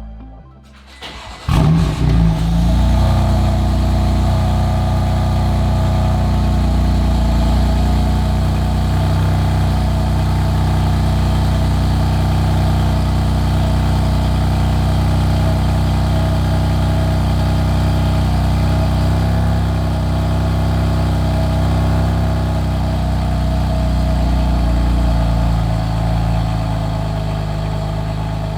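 BMW M4's S55 twin-turbo straight-six with catless downpipes starting up about a second and a half in, then settling into a steady idle.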